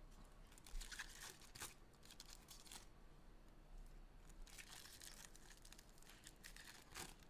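Faint crinkling and rustling of trading-card pack wrappers and cards being handled, in a few short spells, the loudest about a second in.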